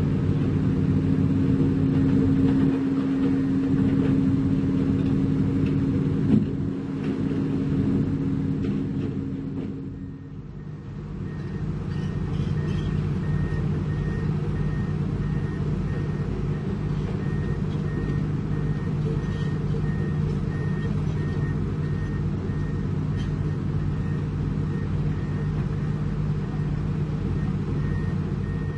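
Heavy diesel construction machinery running steadily. After a brief dip about a third of the way in, a reversing alarm starts beeping at an even pace over the engine noise.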